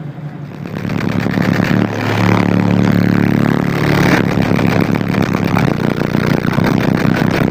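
Competition car audio system playing loud bass, heard from outside the car: four Fi 15-inch subwoofers in a fourth-order bandpass enclosure, driven by four Banda Viking 7000 amplifiers. The level swells about a second in, with sustained low bass notes at their loudest from about two seconds in.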